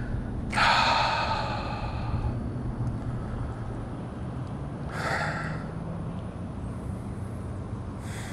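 A man sighs out long and heavily about half a second in, then gives a shorter breath out about five seconds in, over a steady low hum. It is a sigh of disappointment at a bass that has just come off the lure.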